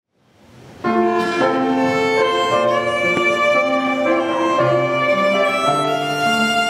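Violin playing a slow melody in long held notes, with a lower part sounding beneath it. The music fades in and comes up to full level about a second in.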